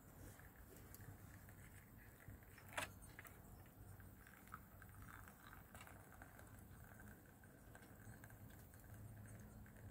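Near silence with scattered faint ticks and one short, sharper click about three seconds in.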